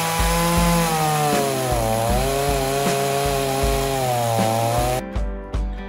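Ryobi 14-inch chainsaw cutting through a log, its pitch sagging as the chain bogs in the cut about two seconds in and then picking back up, before it stops suddenly near the end.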